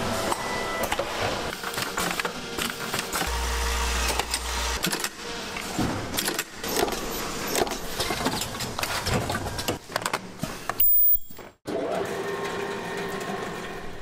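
Factory work sounds in short cut-together clips: clicks, knocks and clatter of parts being handled over running machinery, with a brief break about eleven seconds in.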